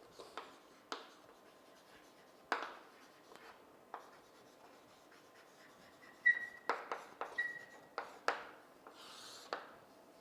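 Handwriting during a lecture: scattered taps and short scratching strokes of a writing tool, busier about six to eight seconds in, with two brief squeaks.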